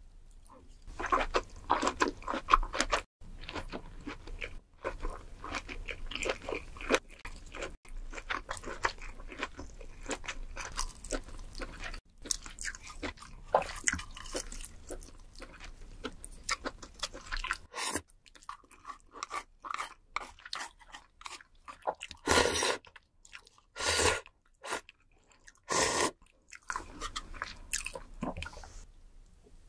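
Close-miked chewing of butter-grilled lobster meat: a dense run of small mouth clicks and bites. Near the end come three louder short mouth sounds about two seconds apart.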